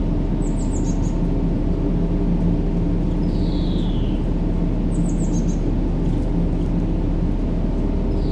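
Steady low rumbling noise with a faint hum in it, under a looped bird call: a quick run of short high chirps, and a few seconds later a longer falling whistle, the pair repeating about every four and a half seconds.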